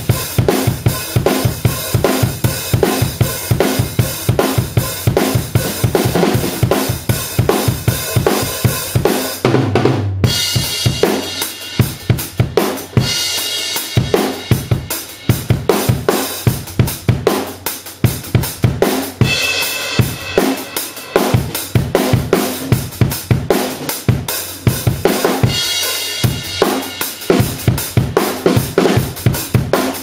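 Drum kit played with sticks: a steady, busy groove of kick drum, snare and cymbals, with a short break about ten seconds in, after which the beat resumes with fewer kick-drum hits.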